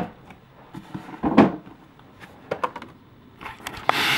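Cardboard box and paper packaging being handled: a sharp knock at the start, a duller thud about a second in, a couple of small clicks, then near the end the rushing rustle of a paper pamphlet sliding out of the box.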